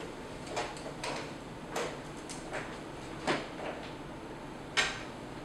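Footsteps of shoes on a hardwood floor, walking away: a string of irregular knocks about two a second, fading, with one sharper, louder knock near the end.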